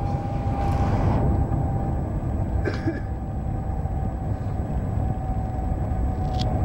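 Cabin noise inside the Shanghai Transrapid maglev train running at high speed while slowing down: a steady low rumble with a thin steady whine above it, and one short click nearly three seconds in.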